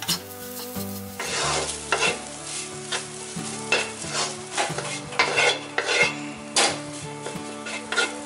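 Cooked rice stir-frying in a nonstick wok: a steady sizzle, with the wooden spatula scraping and tossing through the rice in repeated strokes.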